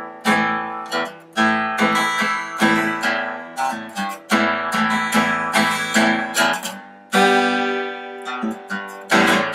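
Fender FA-125CE dreadnought acoustic guitar strummed in a run of chords, each strum ringing out, with a longer chord left to ring about two-thirds of the way through. There is a little string buzz when the strings are hit hard, which the player puts down to a few slightly high frets.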